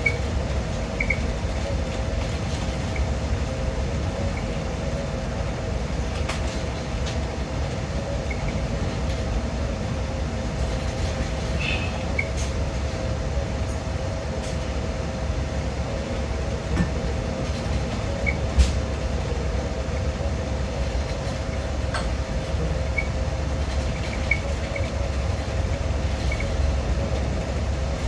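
Steady rumble of a moving passenger train heard from inside the car, with a constant hum, a few faint short wheel squeaks and occasional light clicks from the rails.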